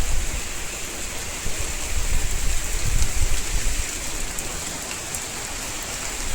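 Heavy rain pouring steadily, a dense even hiss of drops hitting surfaces, with a low rumble underneath that swells and eases.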